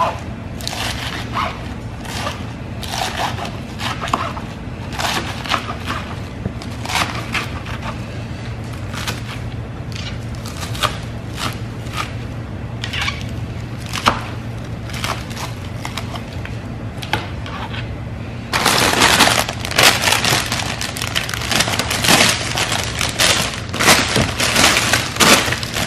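Knife chopping crisp lettuce on a plastic cutting board: irregular crunchy cuts. About eighteen seconds in, a louder continuous noise takes over.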